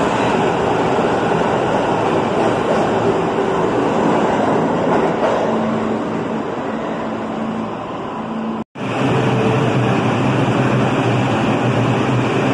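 New York City subway trains running through a station: a steady, loud rumble of wheels and motors as a train moves along the platform. About two-thirds of the way in the sound cuts out abruptly for an instant, then another subway train, a 2 train, is heard passing with a steady motor hum under the rumble.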